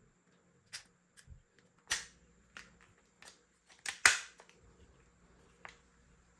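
Sharp plastic clicks and snaps of a toy spring pistol being handled, about eight in all. A louder snap comes about two seconds in, and the loudest about four seconds in.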